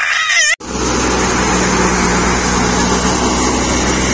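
A toddler's brief high cry, cut off abruptly by a wheat thresher and the engine driving it running steadily under threshing load, a dense even drone over a constant low hum.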